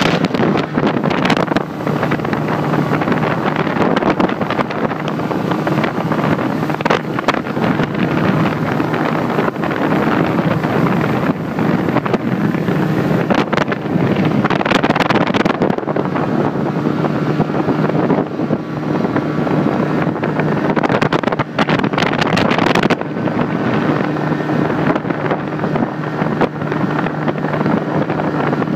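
A small boat's outboard motor running at a steady cruising speed, a constant drone under heavy wind buffeting on the microphone and the rush of water past the hull.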